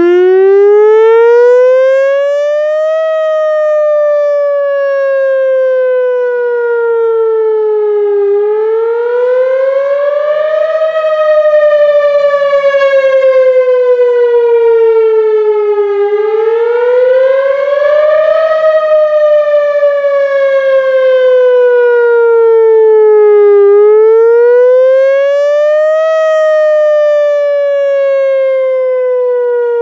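Whelen WPS-4000 electronic tornado siren cutting in suddenly and sounding its wail signal. It is one loud tone that rises for about three seconds and falls for about five, over and over, cresting four times.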